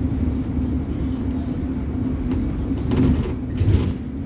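City bus heard from inside while moving: a steady engine and road rumble with a low hum, and a few knocks and rattles, the loudest about three seconds in.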